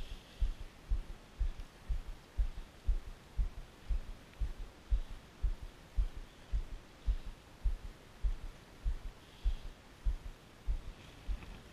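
Dull low thumps repeating about twice a second, in time with a spinning reel being cranked during a lure retrieve.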